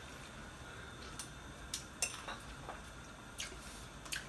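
A few faint, scattered clinks of a metal spoon against dishes over quiet kitchen room tone, about five light ticks spread across the few seconds.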